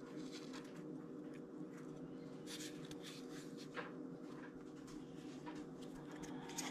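Faint, irregular light scratches and clicks of a dry opossum skull and jawbone being turned in the fingers close to the microphone, over a steady low hum.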